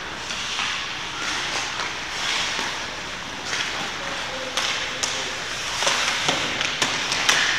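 Game sounds: scattered sharp cracks and knocks, several close together in the second half, over a steady hiss of background noise.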